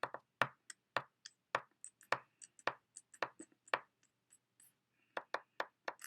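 Quick taps on a phone keypad as a number is dialed: about twenty short clicks in an uneven rhythm, with a pause about four seconds in and a faint tone just after it.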